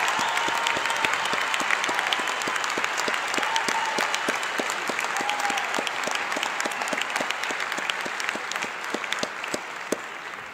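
Large crowd of graduates and guests applauding, the clapping slowly dying away, with a couple of faint calls from the crowd partway through.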